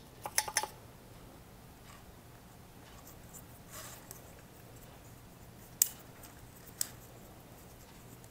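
Quiet hand-handling of a plastic snowblower recoil starter and its starter rope: a few light clicks and taps, with two sharper clicks a second apart in the second half, over a faint low hum.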